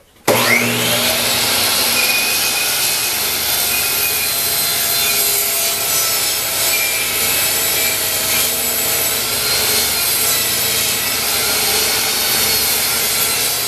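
Benchtop table saw switched on just after the start, its motor whining up to speed, then running steadily while ripping a 1x12 pine board lengthwise along the fence.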